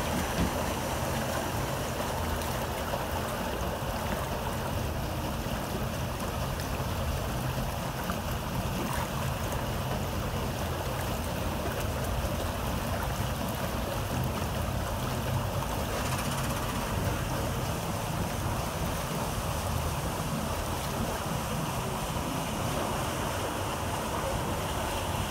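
Steady rush of river water along the hull of a moving paddle steamer, with a low rumble underneath.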